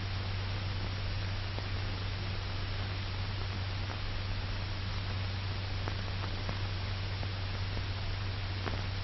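Steady hiss with a low hum and a few faint clicks: the background noise of an old film soundtrack, with nothing else heard over it.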